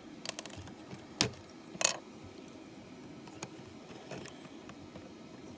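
Plastic LEGO pieces clicking and knocking together as a battery box and bricks are handled and pressed onto a model train locomotive: a few sharp clicks in the first two seconds, the loudest near two seconds in, then only a few faint ticks.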